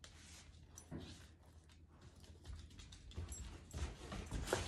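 Faint, scattered ticking and tapping of a dog's claws and a person's steps on a hard laminate floor.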